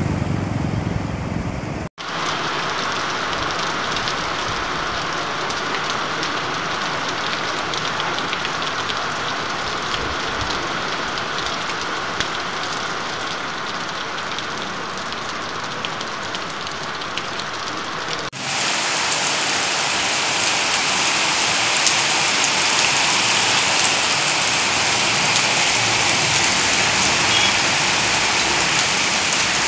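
Steady rain falling, an even rushing noise. It cuts off abruptly about two seconds in and again at about eighteen seconds, after which the rain is louder.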